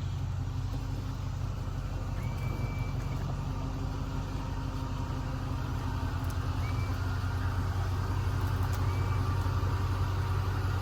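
An engine idling steadily, growing slightly louder toward the end.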